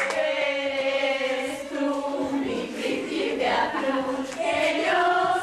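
A group of voices singing a song together, with long held notes.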